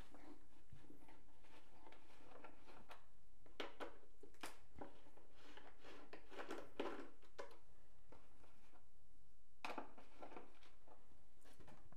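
Small clicks and scrapes of a 2 mm hex key turning screws out of a foam RC jet's hatch, with a few light taps as the loosened screws are picked out.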